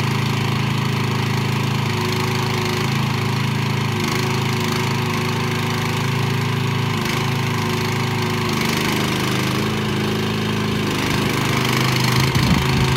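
Mini excavator's 420cc gasoline engine idling steadily, a small-engine drone, growing a little louder and rougher near the end.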